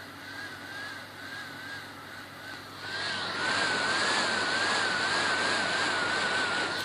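HP 455 laptop's cooling fan running erratically on a failed start-up: a whine that wavers up and down in pitch, then about halfway through a loud rush of air as the fan spins up to full speed, cut off abruptly with a click. The erratic behaviour is the symptom of a faulty motherboard.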